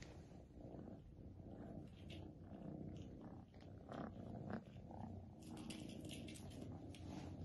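Faint, steady cat purring, with light scuffs and taps of kittens batting a small pom-pom toy across carpet, more of them near the end.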